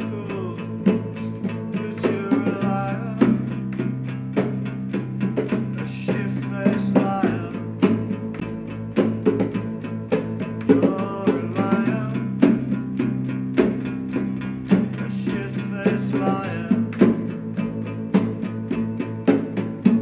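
Rock band music: a drum kit keeps a steady beat under a bass guitar line and guitar.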